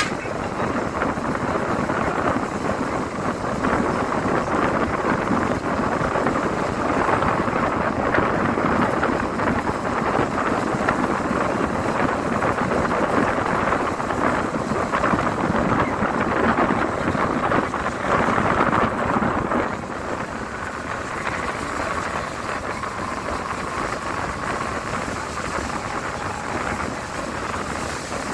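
Steady rush of wind and road noise from a moving vehicle, a little quieter from about twenty seconds in.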